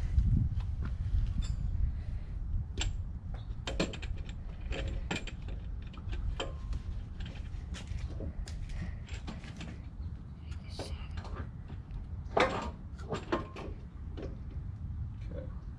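Scattered metallic clinks and knocks of tools and suspension parts being handled while a shock absorber is fitted, over a low rumble of handling noise.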